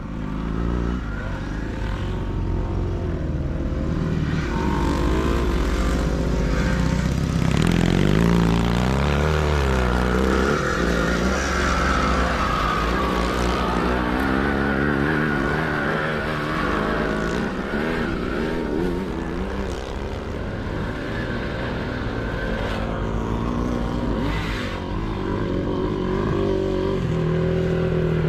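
Racing sidecar motocross motorcycles running hard, several engines overlapping, their pitch rising and falling as they rev up and ease off through the course.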